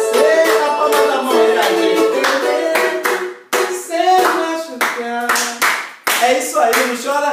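A pagode song played live: a cavaquinho strummed, a man singing, and hands clapping along to the beat.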